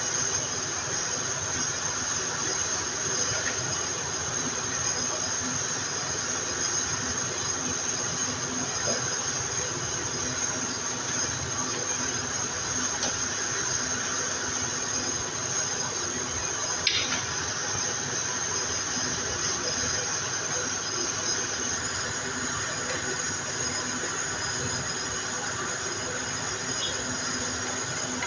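A steady hiss with a thin high whine running through it, and one sharp click about 17 seconds in.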